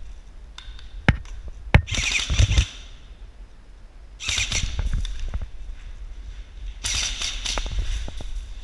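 Airsoft rifle fire: two single sharp cracks, then three rapid full-auto bursts of about a second each, near the start, the middle and the end.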